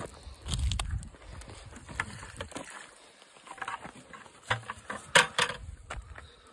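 Water and drowned mice sloshing and splattering out of a tipped plastic bucket trap onto the dirt, followed by a few sharp knocks and handling noise.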